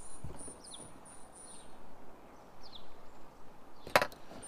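Small birds chirping in a string of short, high, thin notes. About four seconds in there is one sharp click from solar panel cable connectors being handled.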